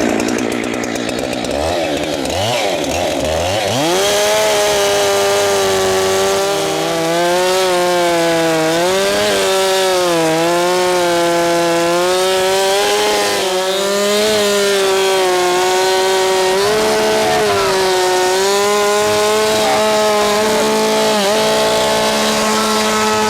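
Chainsaw revving up to full throttle about four seconds in, then cutting lengthwise up the middle of a fallen dead tree trunk. Its high engine pitch dips now and then as the chain bogs under load in the wood.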